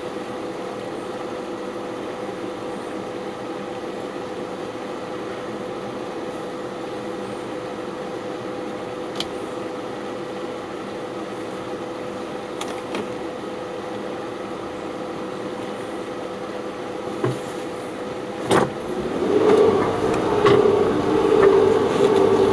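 Steady hum of a 4x4's engine idling, heard from inside the cabin. Near the end a sharp knock, then the engine note gets louder as the vehicle pulls away along the track.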